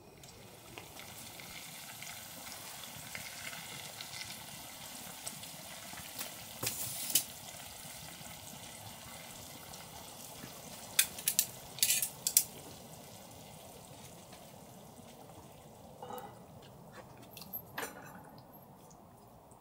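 Food sizzling in a frying pan, a steady hiss that starts about a second in and fades near the end, with a few sharp clinks of a utensil against the pan, several of them together around the middle.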